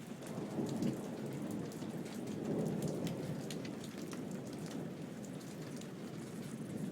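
Steady rain falling with a low rumble underneath that swells about a second in and again near three seconds.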